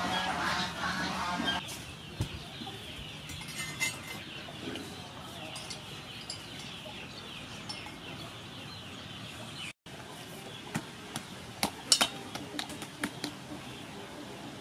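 Hands kneading sticky-rice-flour dough on a metal plate, with a cluster of sharp taps and knocks against the plate a little after the middle. Birds call in the background throughout.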